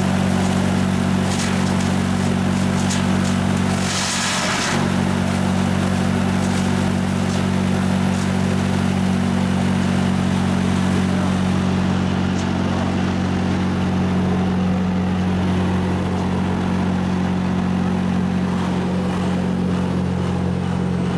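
Diesel-engined mobile wood chipper running at a steady speed, a low even engine drone, with a few brief noisy bursts in the first five seconds.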